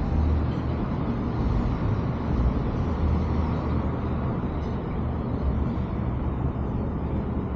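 A car driving along a city street: a steady low rumble of road and engine noise with no distinct events.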